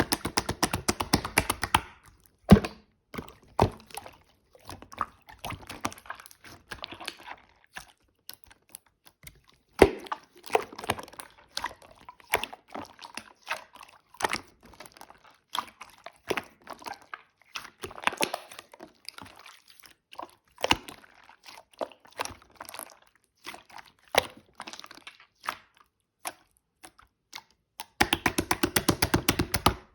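Irregular clicks and knocks of small hard objects being handled, with two fast runs of rapid, even clicking, one at the start and one near the end.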